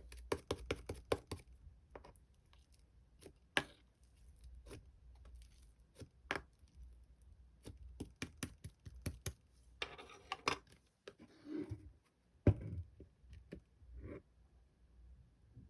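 Hands working purple slime: a quick run of sharp clicks and pops, then scattered pops, a crackly stretch around ten seconds in, and one louder thud about two-thirds of the way through.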